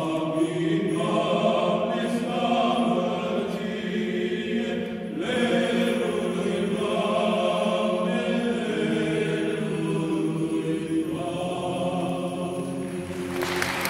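Male choir of Orthodox monks singing a Romanian Christmas carol (colindă) a cappella, with a short breath pause between phrases about five seconds in.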